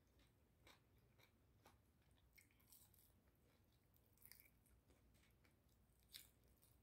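Near silence with faint, scattered chewing and mouth clicks from someone eating.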